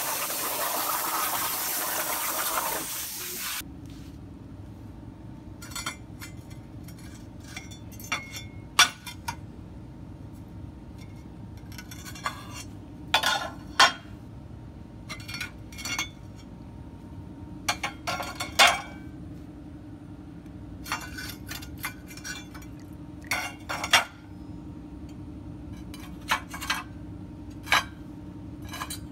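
CNC plasma torch hissing as it cuts steel plate over a water table, stopping suddenly about three and a half seconds in. Then a steady low hum, with repeated sharp clinks of the freshly cut steel brackets being lifted and knocked against each other and the table slats.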